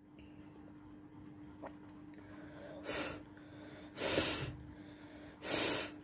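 Three short, forceful breaths of air through a person's nose, a little over a second apart, the middle one loudest.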